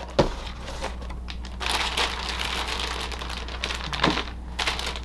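Plastic bags holding model-kit runners crinkling and rustling as they are handled, after a short knock just at the start.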